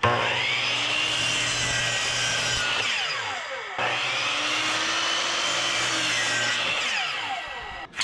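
Electric power saw cutting through wooden boards twice. Its whine rises as the blade spins up and falls away as each cut finishes.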